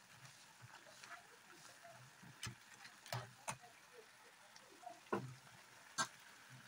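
A spoon knocking and scraping against a steel pan as cooked crabs in sauce are stirred: a few scattered sharp clicks over a faint background.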